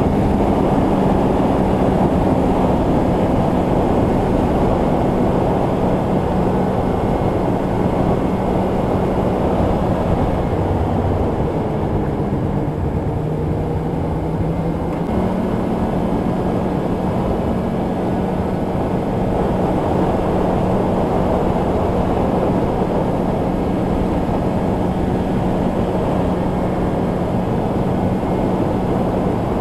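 Polaris two-stroke snowmobile engine running at a steady cruising speed along the trail, a loud even drone with track and rushing-air noise. About eleven seconds in the engine note sags a little as the throttle eases, and it picks back up about four seconds later.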